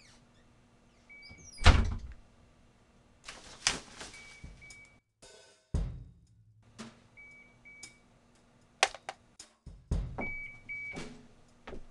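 Sparse percussive soundtrack: scattered knocks and heavy thuds, the loudest about two seconds in, over a faint low hum, with a short double beep recurring about every three seconds.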